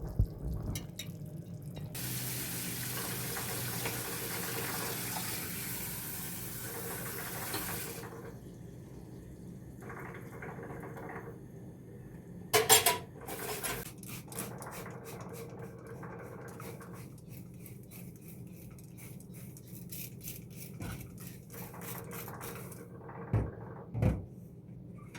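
Kitchen tap running into the sink for about six seconds, then scattered clatter from items being handled, with a sharp clatter about halfway through and two knocks near the end.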